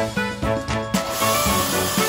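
Background music with a steady beat; about a second in, the hiss of a pressure-washer jet spraying water onto a boat hull joins it.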